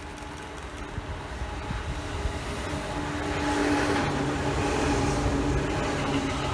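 Tobu 9000 series electric train approaching, growing steadily louder, with steady whining tones coming in about three seconds in over the rumble of the wheels.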